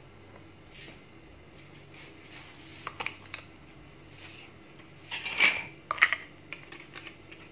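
Kitchen utensils and dishes clinking: a couple of light clicks about three seconds in, then a louder clatter of metal and crockery a little past halfway.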